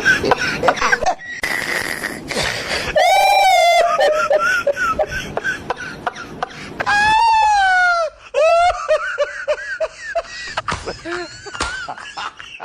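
High-pitched wailing and laughing vocal cries, short and pitch-bending, with a few longer sliding wails and scattered sharp clicks.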